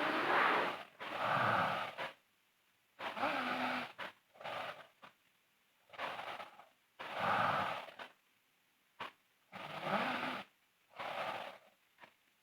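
A sleeping girl snoring loudly: four rasping breath cycles about three seconds apart, each a pair of snores in and out, with silence between them.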